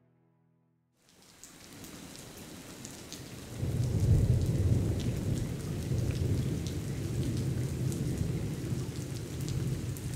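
Steady rain, with scattered drop ticks, begins about a second in. A low rumble of thunder swells in about three and a half seconds in and rolls on under the rain.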